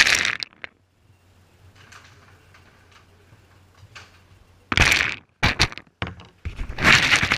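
German Shepherd eating from a bowl with a GoPro lying in it: close, loud bursts of knocking and scraping as the dog's muzzle pushes the food and the camera around. There is one burst at the start and a cluster of bursts in the second half, with short quiet gaps between them.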